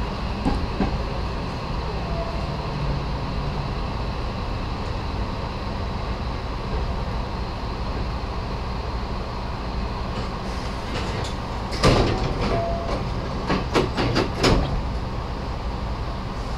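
Nose Electric Railway 7200 series electric train running, a steady low rumble heard from inside the front car. Between about twelve and fourteen and a half seconds in comes a cluster of sharp clacks and knocks.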